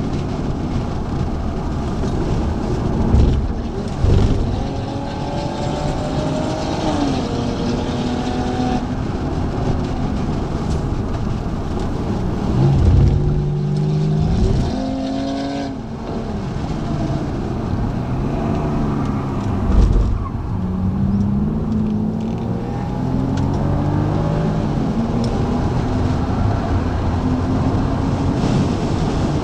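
A BMW's engine heard from inside the cabin at track speed. Its pitch steps down as the car brakes and downshifts into a corner, then climbs through the gears as it accelerates out. A few sudden low thuds come early on and again about two-thirds of the way in.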